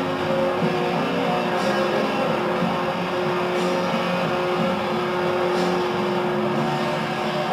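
Droning ambient music with long held notes and a faint accent about every two seconds.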